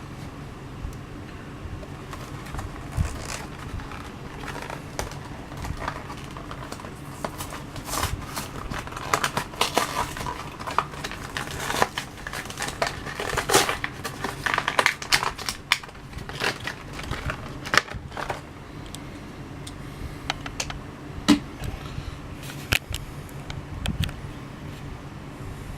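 Plastic blister packaging on a diecast toy car's card being cracked open and pulled apart by hand: irregular crinkling, crackling and sharp clicks, busiest in the middle stretch, over a low steady hum.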